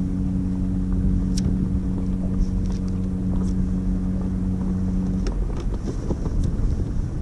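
A ship's horn sounding one long steady blast on two low notes, cutting off suddenly about five seconds in, over a steady low rumble.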